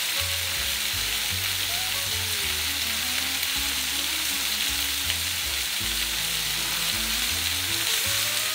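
Chicken thighs sizzling steadily in hot oil in a stainless-steel paella pan over high heat, searing and browning, with an occasional light tap of metal tongs turning the pieces. Background music with a bass line plays underneath.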